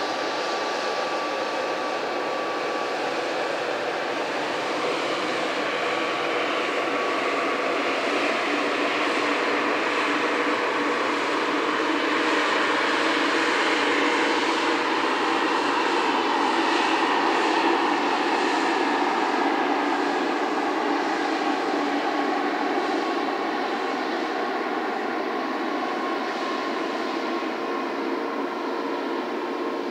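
Pratt & Whitney PW1500G geared turbofans of an Airbus A220-300 running at low thrust as the jet taxis: a steady jet rush with a thin whine over it, swelling slightly toward the middle and easing off near the end.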